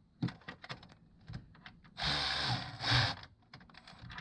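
A few light clicks of parts and tools being handled, then a cordless power driver runs in a burst of just under a second about two seconds in and briefly again near three seconds, driving in the engine front cover's bolts.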